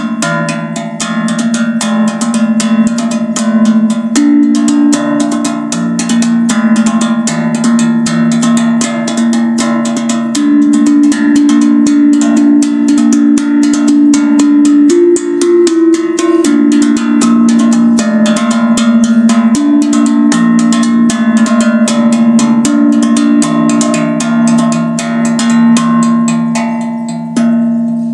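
Zen Tambour steel tongue drum played fast with bare hands: a quick, steady stream of strikes over ringing low notes whose pitch shifts every few seconds. Near the end the strikes stop and the notes ring out.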